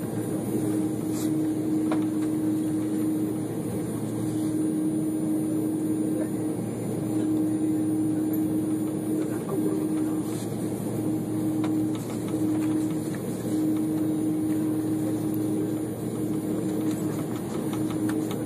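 Steady cabin noise of a jet airliner taxiing, heard from inside the cabin: a low, even rumble with a constant hum.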